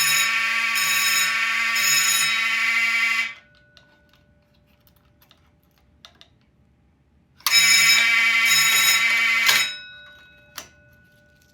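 Fire alarm horn sounding a loud, steady buzz after the pull station is activated. It cuts off suddenly about three seconds in, sounds again for about two seconds after a pause of some four seconds, then stops, followed by one sharp click.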